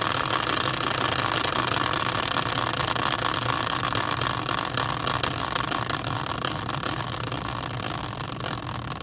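Hand-spun heavy-duty caster wheel turning freely on its axle in a steel bracket, making a steady whir with a fast rattle. It slowly loses speed and grows quieter toward the end as it winds down.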